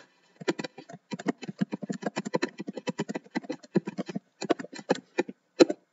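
Typing on a computer keyboard: a quick, irregular run of keystrokes with short pauses, ending with one louder single keystroke near the end.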